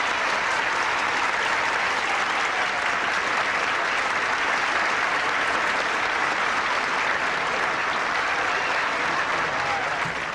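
Audience applauding steadily, a long round of applause welcoming a comedian onto the stage.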